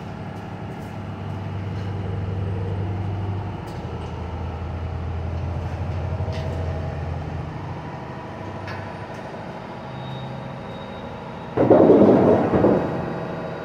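A steady low mechanical drone that dips slightly in pitch a few seconds in, with a loud rush of noise lasting about a second near the end.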